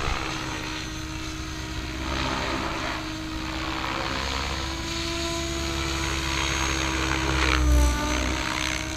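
MSH Protos Max V2 electric RC helicopter in flight, its main rotor and motor giving a steady whine. About eight seconds in, the sound swells louder and the whine drops in pitch.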